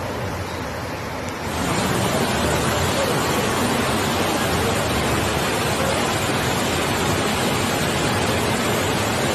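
Heavy rain and floodwater rushing along a flooded street, a steady wash of noise that steps louder about a second and a half in.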